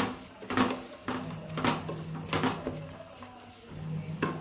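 Wooden spatula stirring rice in a steel pot, knocking and scraping against the pot's side about five times.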